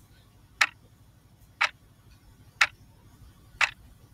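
Clock ticking sound effect, one sharp tick a second, four ticks in all: a countdown for the quiz answer.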